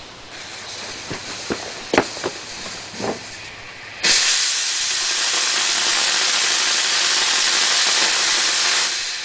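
Small homemade black-powder rocket motor firing on a static thrust test. A few scattered crackles come first, then about four seconds in the motor lights with a sudden loud, steady hiss that lasts about five seconds and dies away near the end as the propellant burns out.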